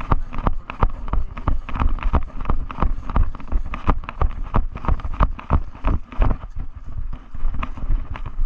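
Running footsteps: a quick, steady rhythm of about three to four footfalls a second.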